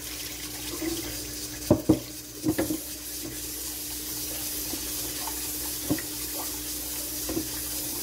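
Kitchen tap running as rice is washed in a stainless steel pot at the sink, with the rinse water poured off. The pot knocks a few times.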